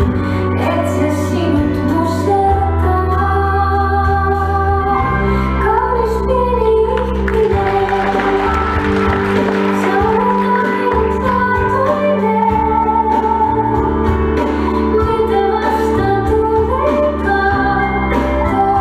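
A woman singing a slow song with vibrato over long, sustained organ-like keyboard chords.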